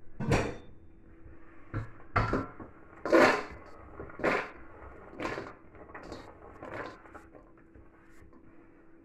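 Diced vegetables being scooped and scraped off a wooden chopping board by hand: a string of short knocks and scrapes, about seven, getting weaker towards the end.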